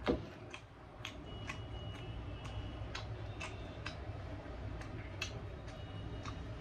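A thud at the start, then light clicking about twice a second over a steady low hum.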